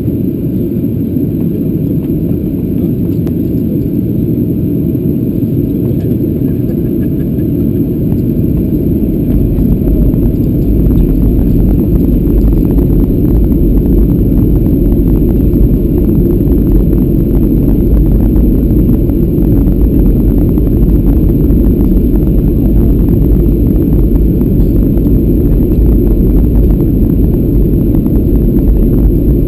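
Cabin noise inside a Ryanair Boeing 737-800 on descent: loud, steady engine and airflow noise, with a deep rumble that grows stronger about ten seconds in.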